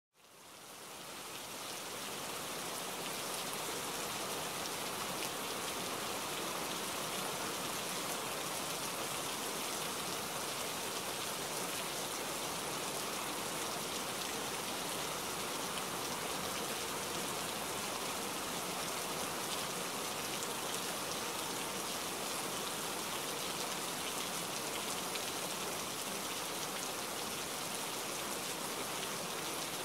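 Heavy monsoon rain falling steadily, a dense even hiss that fades in over the first two seconds.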